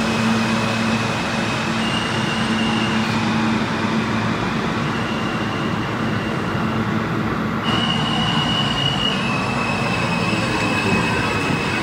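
New York City subway M trains running through an underground station, one pulling out and one pulling in. Steel wheels squeal on the rails in steady high tones that step up and down in pitch several times over the rumble of the running train.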